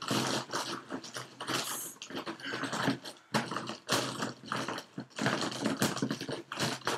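Copic markers clicking and clattering against each other in a box, with cloth rustling, as a hand rummages among them under a cloth.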